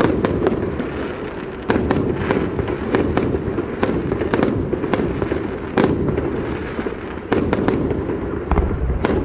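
Fireworks display: aerial shells bursting in a rapid, irregular series of sharp bangs over a steady low rumble.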